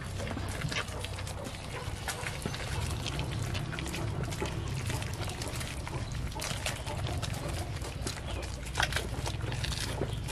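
Goats chewing and smacking on ripe bananas: many small, irregular wet clicks over a steady low rumble.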